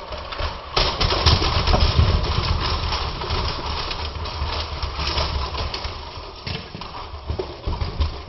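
Lego train running along plastic track: a continuous rattling clatter of rapid small clicks over a low rumble. It gets louder about a second in and eases off near the end.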